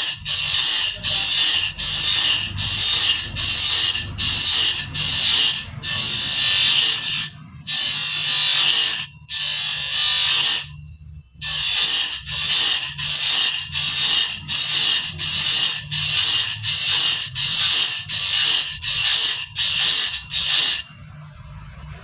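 Bandsaw blade teeth being sharpened, rasping metal-on-metal strokes about two a second, with a few longer strokes near the middle, stopping shortly before the end.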